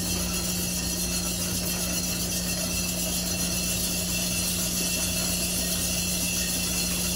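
Three-barrel coffee sample roaster running: its motor and turning drums make a steady mechanical drone with a constant low hum, while green coffee beans are poured into the drums.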